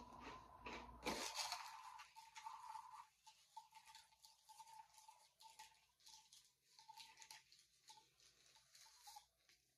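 Goldfish cracker snack bag crinkling and rustling as a hand digs into it, with a louder rustle about a second in and then scattered short crackles.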